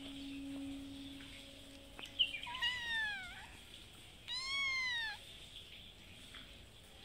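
Cat meowing twice, asking for food: a meow that falls in pitch about two seconds in, then a higher one that rises and falls about a second later.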